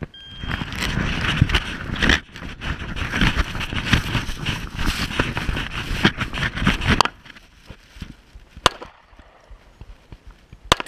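Brush branches scraping and rustling against a body-worn camera as the wearer pushes through scrub, a dense rough scratching with many small clicks. It stops suddenly about seven seconds in. Two single sharp cracks follow about two seconds apart near the end.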